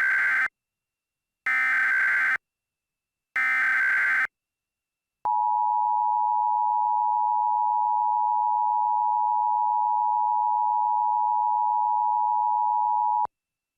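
Emergency Alert System alert tones: three short identical bursts of SAME digital header data, followed by the two-tone EAS attention signal held steady for about eight seconds, announcing that an emergency message follows.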